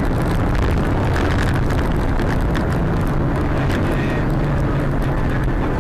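A car driving on a snowy, slushy highway, heard from inside the cabin: steady engine and tyre noise with a low hum underneath.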